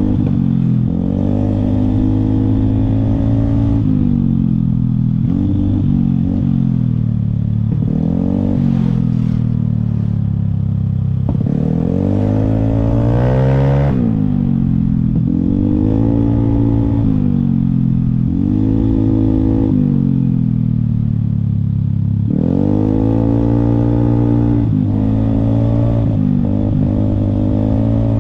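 Engine of a Vespa Primavera scooter bored out to about 200cc with a 66 mm piston, heard while riding: it revs up and eases off again and again, the pitch climbing and dropping every two or three seconds.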